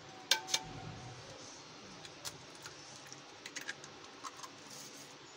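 An egg knocked twice sharply against a terracotta clay bowl to crack the shell, followed by a scatter of lighter clicks as the shell is broken open by hand.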